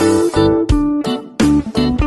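Background music of plucked guitar notes in a steady rhythm.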